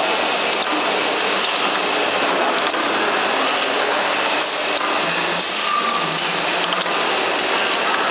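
Automatic ROPP bottle-capping machine running: a steady mechanical clatter with frequent light clicks and clinks as bottles are indexed through the star wheel and capped.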